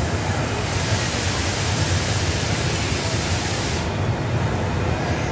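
Steady rush of air from the blowers and suction hoses of a foam-ball play structure, over a low steady hum.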